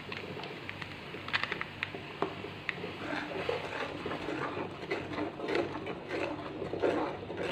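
A metal spoon stirring thick curry gravy in a frying pan, scraping against the pan in repeated strokes from about three seconds in. Before that come a few sharp clicks as spice is shaken in from a packet.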